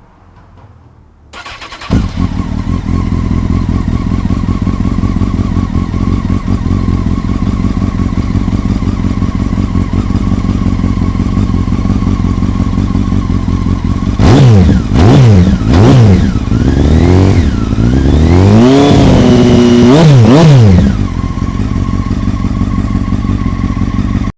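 A 2002 Honda CBR900RR Fireblade's 954 cc inline-four is started with a brief crank and catches about two seconds in, then idles steadily through its exhaust. Later it is blipped three times in quick succession and then revved higher and held for a few seconds before dropping back to idle.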